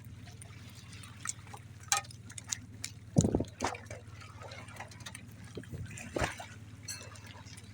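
Water splashing and dripping in short irregular bursts, the loudest about three seconds in and again about six seconds in, over a steady low hum.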